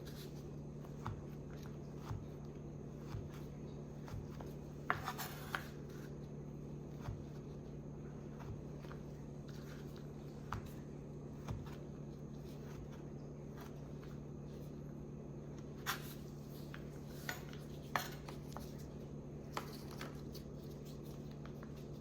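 Scattered light clinks and knocks of kitchen utensils and dishes being handled, over a steady low hum.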